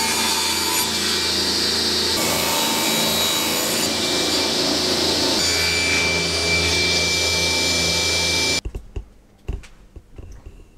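Table saw running and cutting through a wooden board, a loud steady whine and cutting noise that stops abruptly about two seconds before the end, followed by a few faint knocks.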